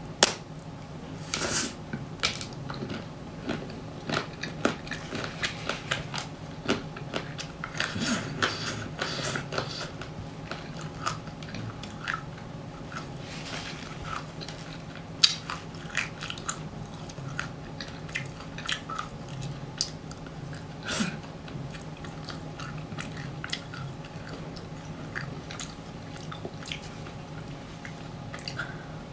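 Close-up biting and chewing of a homemade ice cream bar with a crisp purple coating: sharp cracks as the shell breaks, then crunching while it is chewed. The loudest cracks come just after the start and about 15 seconds in.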